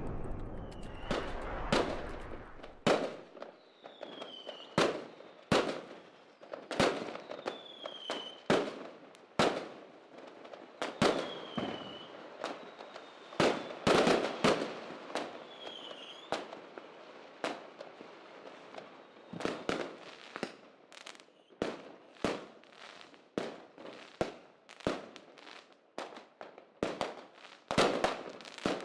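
Fireworks going off: an irregular string of sharp bangs and cracks, with several short falling whistles between them. A low rumble underneath stops about three seconds in.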